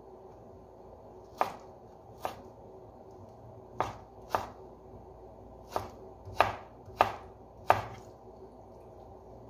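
Kitchen knife cutting raw chicken breast into small cubes: eight sharp knocks of the blade striking the cutting board, spaced unevenly and partly in pairs.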